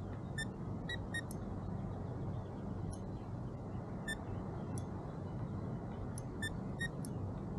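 About eight short, high electronic beeps at irregular intervals, over a steady low background hum and noise.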